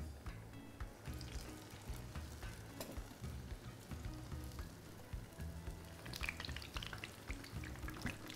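Urad dal bhallas deep-frying in hot oil in a pan: a crackling sizzle that grows louder about six seconds in, over soft background music.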